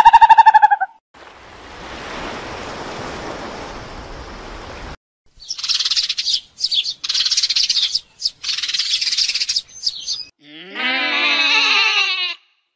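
A sequence of separate animal sound clips: a few seconds of rushing noise, then four short bursts of high bird chirping, then a quavering, falling bleat near the end.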